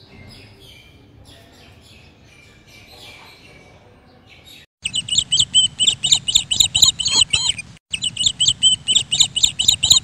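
Faint bird chirps, then a domestic canary singing loudly in fast, repeated high-pitched phrases that start abruptly about five seconds in, with one brief break partway through.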